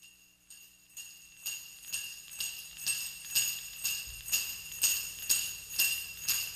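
Opening of an indie-pop song: jingle bells shaken in a steady beat, about two strokes a second, growing louder over the first few seconds, with no other instruments yet.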